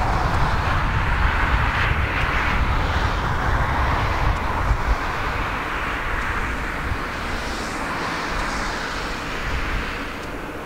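Jet engines of a Boeing 777-300ER rolling out on the runway just after landing: a steady rumbling roar with a hiss on top, easing off slowly near the end.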